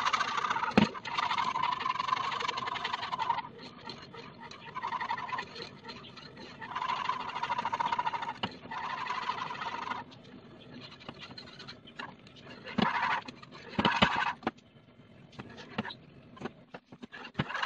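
Wire whisk stirring a thickening cooking-cream mixture in a metal pot on the stove: rapid rattling scrapes in bursts of a few seconds, with a few sharp knocks of the whisk against the pot.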